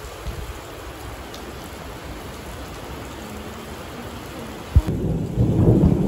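Heavy rain pouring down steadily. Near the end a sudden crack of thunder, then a louder rolling rumble over the rain.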